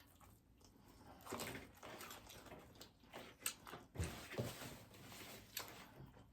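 A person chewing taco, faint mouth noises with a few short crisp clicks and small sounds between bites.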